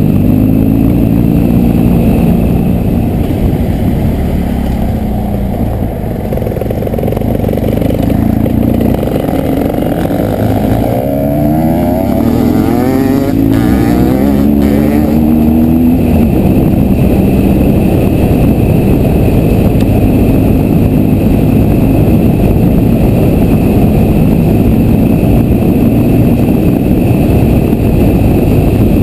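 BMW R1200 GS boxer-twin engine running under way on a dirt and grass track, heard from on the bike. Partway through the engine eases off briefly, then pulls with a few rising revs before settling into a steady drone.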